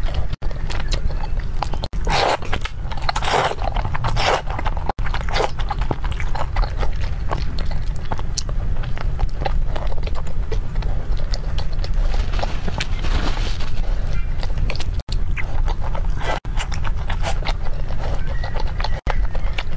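Close-miked slurping and chewing of wide, slippery flat noodles in sauce: wet mouth clicks and smacks, with longer slurps at about two to four seconds in and again at about twelve to fourteen seconds. A steady low hum runs underneath.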